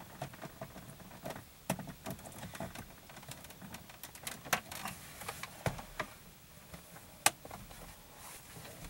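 Scattered small plastic clicks and knocks of an OBD-II cable connector being handled and plugged into a car's diagnostic port under the dashboard, with one sharper click near the end.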